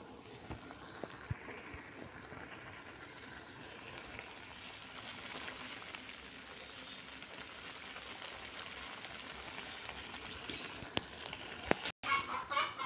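Shrimp cooking in a wok with a little salted water: a steady hiss of simmering, with the metal spatula scraping and clicking against the wok as they are stirred. There are a few sharper knocks near the end.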